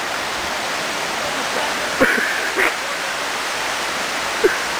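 Steady rushing hiss of running water, as from a small cascade or fountain, with a couple of brief distant shouts about two seconds in.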